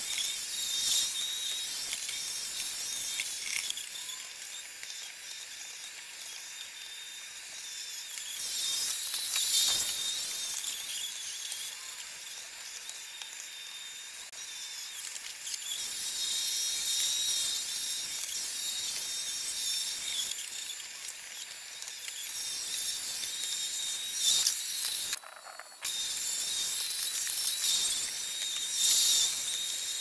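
iRobot Roomba 870 robot vacuum running: a steady mechanical whirring hiss with a thin high whine. It swells louder several times as the robot moves about, with a brief drop-out about 25 seconds in.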